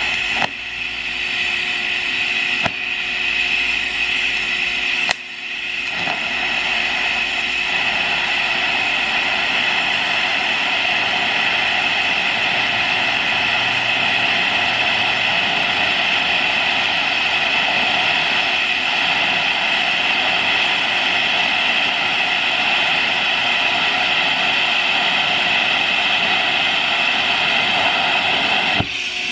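DC TIG welding arc hissing steadily as a bead is laid with filler rod. The arc sound dips briefly with a click three times in the first five seconds, then runs evenly until it stops just before the end.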